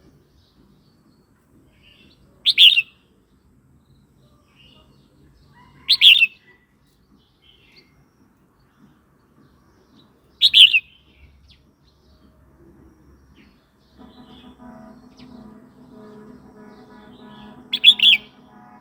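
Red-whiskered bulbul calling: four short, loud bursts of two or three quick chirping notes, spaced a few seconds apart. A faint steady hum comes in about three-quarters of the way through.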